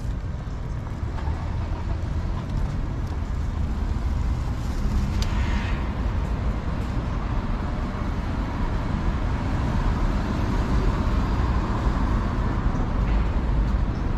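Steady city traffic noise: a continuous low rumble of road vehicles with general street ambience.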